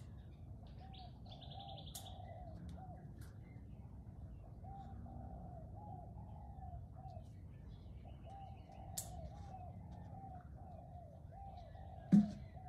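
A dove cooing over and over in a steady run of soft notes, with a few faint chirps from other birds. About 12 seconds in there is a sudden loud thump.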